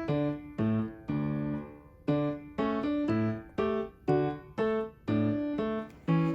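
Background music: a piano or electric-piano melody with notes struck at an even pulse, each dying away before the next.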